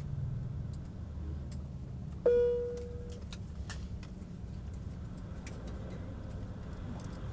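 Aircraft cabin chime: a single ding about two seconds in, fading over about a second, as the seat belt sign goes off after arrival at the gate. Under it runs a low cabin hum with scattered small clicks and rattles.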